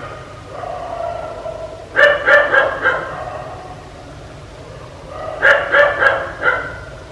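A dog barking in two quick runs of about four barks each, about two seconds in and again about five and a half seconds in, with quieter drawn-out calls in between.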